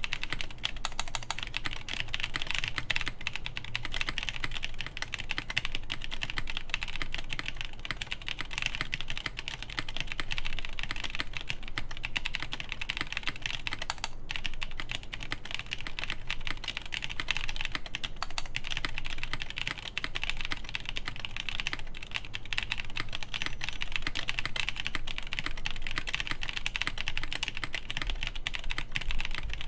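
Continuous fast typing on a Pontus 21xx mechanical keyboard with Durock Ultramarine V2 linear switches under GMK Dolch keycaps, mounted PCB-only with no plate: a steady stream of key clacks.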